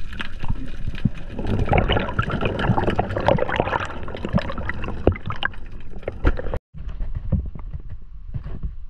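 Underwater sound picked up by a diving camera: gurgling water and bubbles with many scattered clicks and crackles, strongest in the first half. It cuts out briefly about two-thirds of the way through and comes back quieter.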